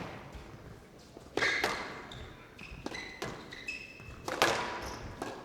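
Squash ball being struck and smacking off the court walls, a handful of sharp knocks, with players' shoes giving short high squeaks on the court floor between hits.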